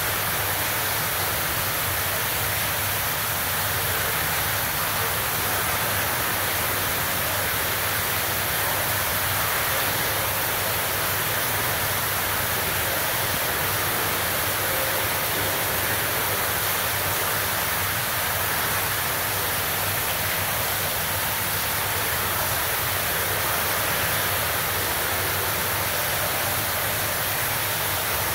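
Steady, even rushing hiss with no breaks or changes.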